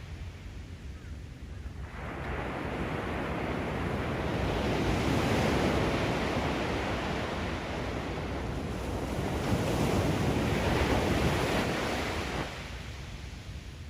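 Ocean surf breaking and washing up a sandy beach: the wash swells in about two seconds in, peaks twice and falls back near the end.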